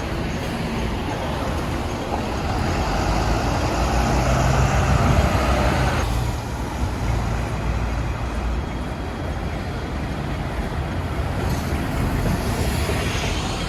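Road traffic on a busy city street: the steady drone of heavy vehicle engines, louder at first and dropping abruptly about six seconds in, with a short hiss near the end.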